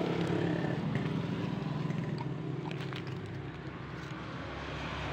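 A steady low engine hum, with a few faint crunching clicks as a dog chews a biscuit.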